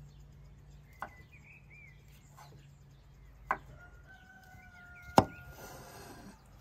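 Chef's knife slicing through fresh mushrooms and knocking on a wooden cutting board: three sharp chops about a second apart and more, the loudest about five seconds in, followed briefly by a soft scrape. Birds chirp faintly behind.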